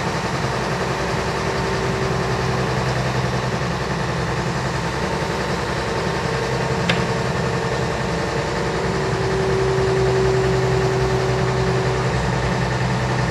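Heavy diesel engine idling steadily with a constant hum. A mid-pitched tone grows somewhat louder from about two-thirds of the way through, and there is a single sharp click a little after halfway.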